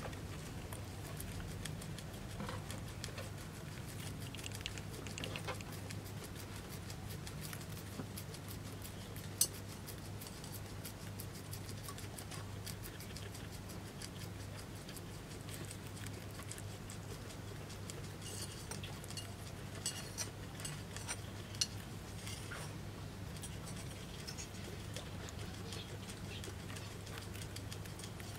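A guinea pig chewing corn leaves close up: a rapid run of fine, crisp nibbling clicks, with a few louder snaps, over a steady low hum.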